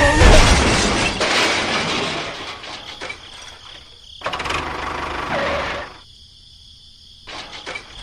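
Engine noise in separate bursts: a loud stretch that fades over the first couple of seconds, another burst about four seconds in that stops suddenly near six seconds, and a few clicks near the end.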